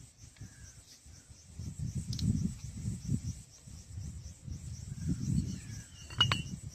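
Crickets chirring in a steady pulsing drone under irregular low rumbling noise, with a few faint short bird chirps. A sharp click comes about six seconds in.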